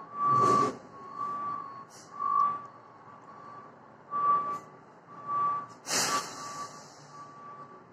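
Garbage truck's reversing alarm beeping about once a second as it backs up. A loud burst comes just after the start, and about six seconds in a loud hiss of air from the truck's brakes trails off over a second or so.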